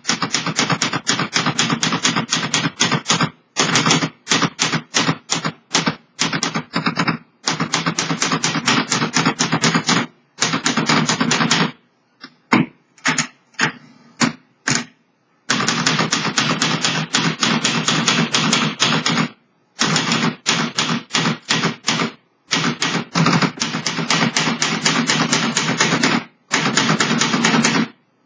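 Underwood 315 manual portable typewriter (the Olivetti Lettera 31 / Dora design) being typed on: fast runs of sharp key strikes, several a second, broken by short pauses. The machine has been freshly refurbished.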